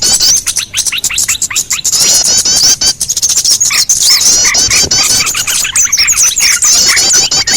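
Bird-lure recording of many small birds calling together, used to draw small birds in: a dense, loud chatter of rapid, repeated high chirps over shorter, lower call notes.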